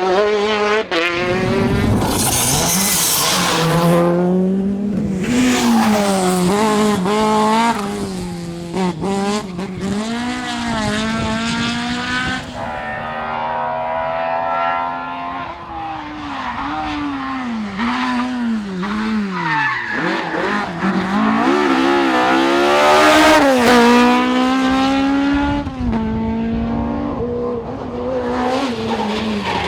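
Rally cars driven flat out, their engines revving up and dropping back again and again through the gear changes, with tyre squeal in places.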